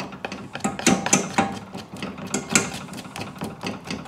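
A kitchen knife scraping Spätzle dough off the edge of a wet wooden Spätzle board in quick strokes, a rapid run of scraping clicks several times a second.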